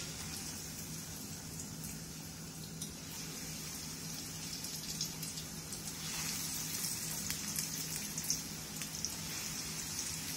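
Breadcrumb-coated egg cutlets sizzling in hot oil in a shallow frying pan: a steady hiss with light crackles. It grows louder about six seconds in, as more cutlets go into the oil.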